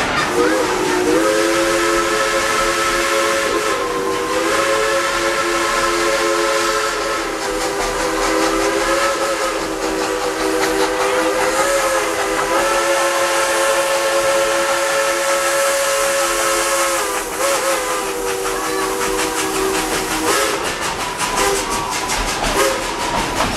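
Narrow-gauge steam locomotive's chime whistle blowing one long chord of several notes for about twenty seconds, wavering and dipping briefly a few times before stopping, over the running noise of the train.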